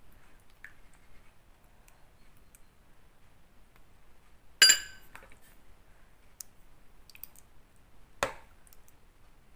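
Ceramic soup bowls clinking as the soup is served: one sharp, ringing clink about halfway through, then a duller knock near the end.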